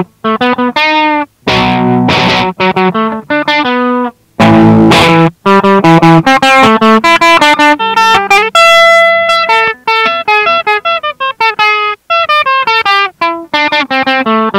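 Instrumental guitar break in a song: a guitar strums chords that are cut off short, then from about five seconds in plays a run of quick single notes.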